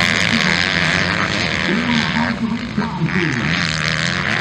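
Several MX2 motocross bikes racing through a dirt turn, their engines revving hard with the pitch rising and falling as the riders work the throttle.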